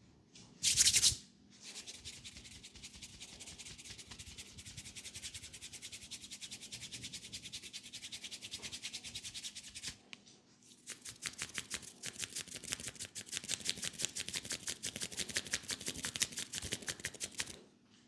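Fingertips scratching rapidly through short hair on a scalp, a fast run of dry, crackling rubbing strokes, in two long stretches with a short break about ten seconds in. A brief louder burst of rubbing comes about a second in.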